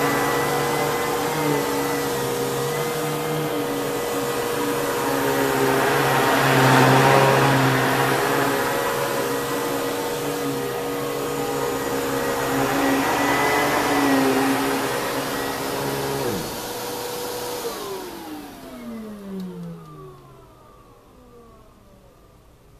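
Kenmore Progressive canister vacuum cleaner with its Lamb electric motor running with a steady whine and rush of air; a lower hum drops out about sixteen seconds in, then the motor is switched off and winds down with a falling whine until it fades to a faint hiss.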